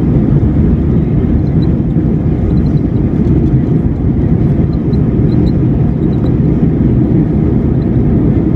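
Steady low rumble inside the cabin of an Airbus A321 airliner, with engine and airflow noise at an even level.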